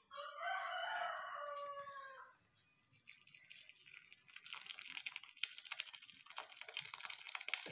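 A rooster crows once, one long call of about two seconds. After a short pause, curdled milk and whey are poured into a cotton cloth over a strainer, with a steady fine splashing and trickling that runs on to the end.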